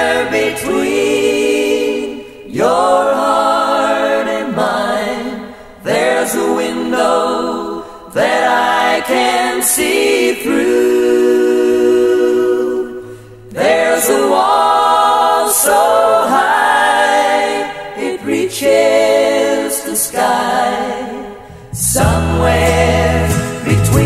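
1970s pop song: several voices singing close harmony with almost no instrumental backing, the full band with bass coming back in near the end.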